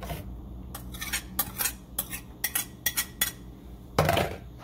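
A quick run of about ten light clinks of a utensil against dishware as chopped red onion is knocked out of a bowl into a cooking pot, followed near the end by one louder, brief clatter.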